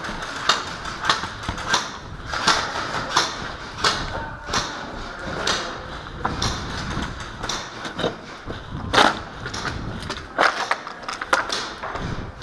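Footsteps on a concrete floor strewn with rubble, about two a second, as a player moves quickly, with rustling of gear.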